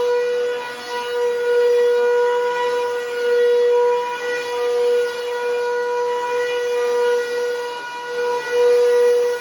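Bissell Powerforce Helix Turbo 68C71 upright vacuum running with a loud, steady, high-pitched motor whine, its loudness rising and falling every couple of seconds. The owner calls it very, very loud and takes it to need its fan and motor cleaned.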